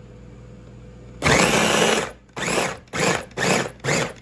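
Ninja food chopper's motor pulsing as its blades chop tomato, onion, cucumber and cilantro: one longer burst about a second in, then short pulses about two a second.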